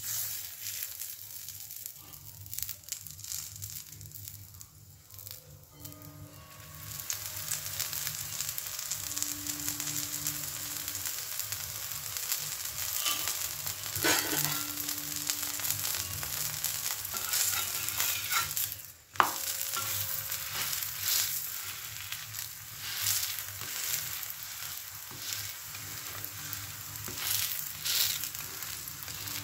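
A stuffed paratha sizzling with oil on a hot flat tawa, a steady crackling hiss that grows louder about seven seconds in. One sharp click sounds about two-thirds of the way through.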